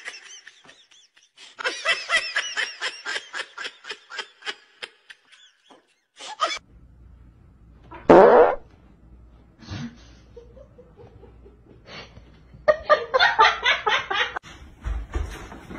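Laughter in quick rhythmic bursts, about four a second, for a few seconds and again near the end, with one loud short sound falling steeply in pitch about eight seconds in.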